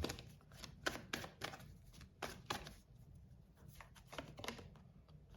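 Hand-handling noises: about a dozen soft, irregular clicks and rustles, the loudest in the first few seconds.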